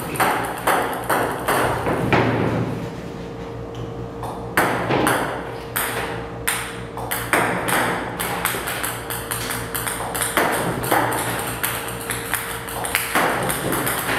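Ping-pong balls repeatedly clicking and bouncing on a table tennis table, fed by a table tennis robot, several light taps a second over a steady hum.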